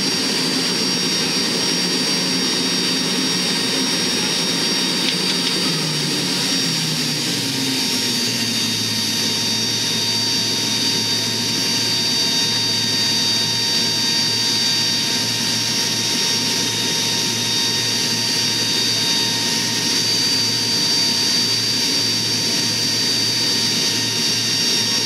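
Four Allison T56 turboprop engines of a Lockheed C-130T Hercules running while it taxis, heard from inside the cargo hold through the open rear ramp: a steady high turbine whine over a low propeller drone. The drone drops in pitch about six to eight seconds in, then holds steady.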